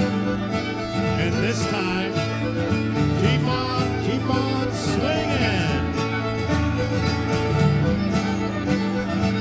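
Live string band playing a fiddle-led dance tune with guitar backing, for contra dancing.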